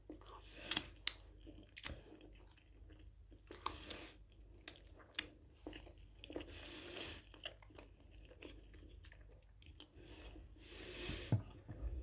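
A person chewing food with her mouth closed, with wet smacking and small mouth clicks, louder at a few points.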